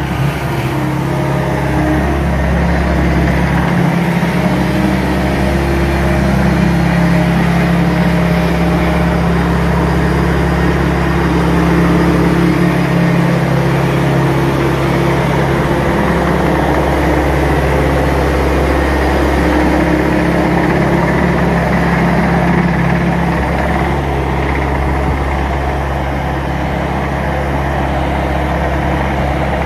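Ditch Witch SK3000 mini track loader's engine running steadily as the machine drives while carrying a grapple load of heavy logs.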